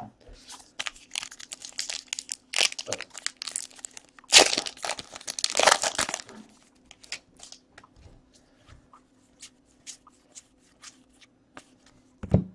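Foil wrapper of a trading card pack being torn open and crinkled, loudest about four to six seconds in, then only scattered light clicks.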